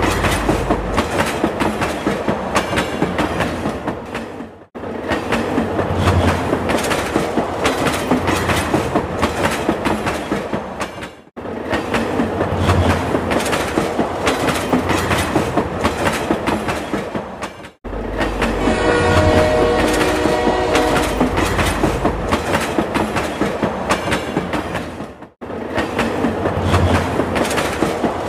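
Rail King toy steam train running on plastic track: a fast, rhythmic clicking and chuffing. A steady whistle tone sounds at the very start and again about two-thirds of the way through, and the sound breaks off briefly four times.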